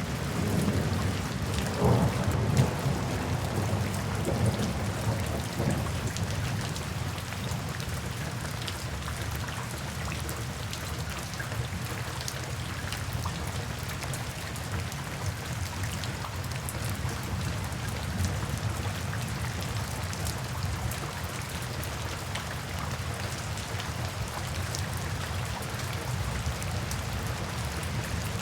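Steady rainfall with scattered drops ticking on a surface. A low rumble of thunder rolls in the first few seconds, loudest about two seconds in, then dies away, leaving only the rain.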